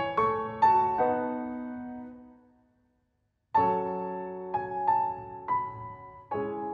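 Background piano music: a run of notes rings out and fades to silence, and after a pause of about a second a new phrase of notes begins.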